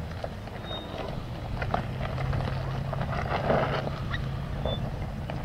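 Solid-axle-swapped 2002 Nissan Frontier's engine running steadily at low revs as the truck crawls over rock, with scattered sharp clicks and crunches of rocks under the tyres.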